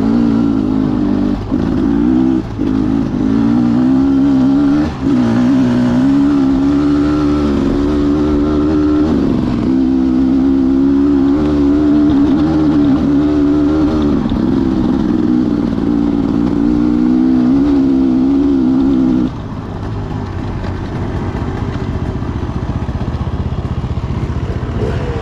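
Beta 300RR two-stroke dirt bike engine running hard under throttle, its pitch wavering up and down with brief chops off the throttle. About 19 seconds in it drops to a quieter, lower sound.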